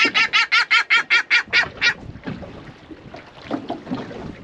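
A seabird perched on the boat calling in a quick run of about ten short calls, about five a second, stopping about two seconds in; the fisherman takes the calls as the bird saying it is hungry, after the bait. Then the wash of sea and wind.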